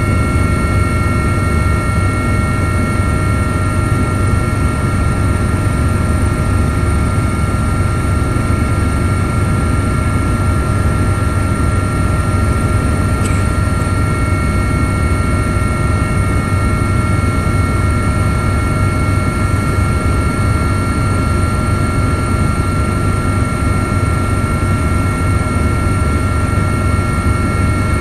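Helicopter in flight, heard from inside the cabin: a steady, loud rumble from the rotor and engine, with several constant high-pitched whines above it.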